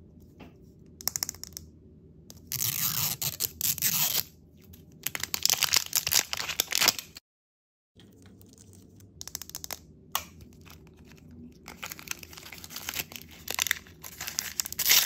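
L.O.L. Surprise toy packaging being torn open and crinkled by hand: plastic wrapping and a blind bag rustling and ripping in irregular bursts. There is a brief silent gap about seven seconds in, a single sharp click about ten seconds in, and the loudest crinkling near the end.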